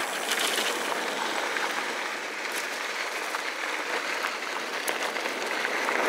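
Wind rushing over the microphone and mountain-bike tyres rolling on a dirt trail at speed, a steady rushing noise with a few small clicks and rattles.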